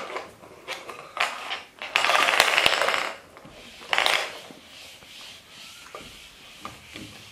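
Handling noises: a cloth rubbed over a wooden floor and plastic jars knocked about. A loud rattling rustle starts about two seconds in and lasts about a second, and a shorter one comes near four seconds.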